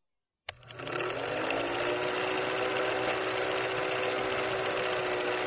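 Old film projector running, a rapid even rattle of film through the mechanism over a steady motor hum. It starts with a click about half a second in, and the hum rises briefly at first as the motor comes up to speed.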